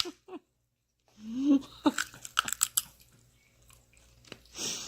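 A toddler crunching and chewing on a raw carrot: a run of sharp, crackly bites about two seconds in, with a short babbled vocal sound just before.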